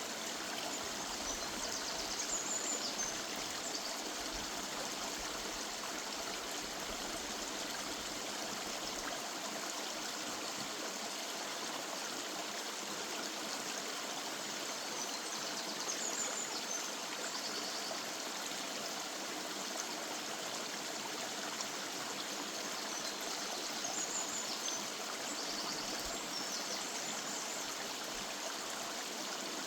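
River water running and splashing steadily over stones in a woodland stream. A bird gives short high calls about three times, a couple of seconds in, in the middle and near the end.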